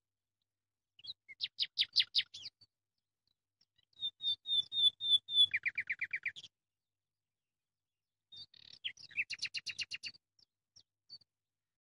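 A songbird singing three short phrases of rapid trilled notes: one about a second in, a second around four seconds in that runs from a string of clear notes into a lower, faster trill, and a third near the end.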